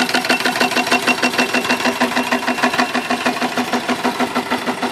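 Small single-cylinder vertical steam engine, fed by its vertical boiler, running steadily with a quick, even beat of short strokes. A thin high whistle sounds over it and fades out a little past halfway.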